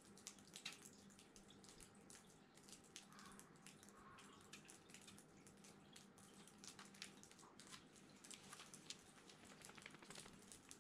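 Near silence with faint, irregular ticks of water dripping onto wet pavement.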